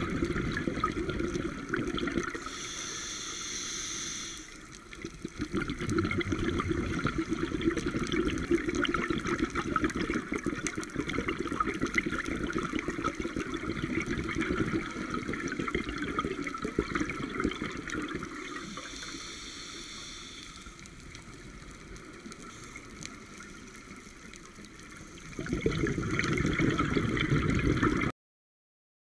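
Scuba regulator breathing underwater, heard through the camera housing: a crackling, bubbling rush of exhaled air that rises and falls, broken twice by a couple of seconds of steadier hiss from the regulator. The sound cuts off abruptly near the end.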